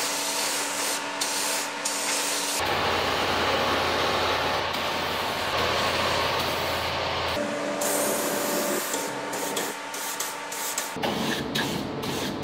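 Pneumatic spray gun hissing steadily as it sprays primer onto alloy wheels, in several spells whose sound changes abruptly from one to the next.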